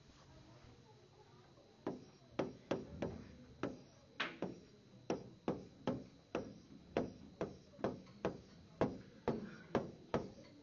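Writing on the glass of an interactive touchscreen display: a run of short sharp taps, about two a second, starting about two seconds in.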